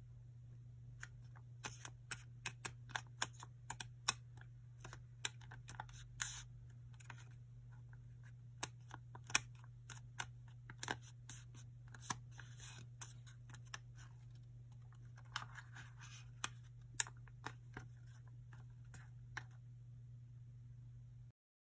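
A small square of origami paper being folded and creased by hand: irregular crisp ticks and crackles, with a short rustle about two-thirds of the way through, over a steady low hum. The sound cuts off suddenly near the end.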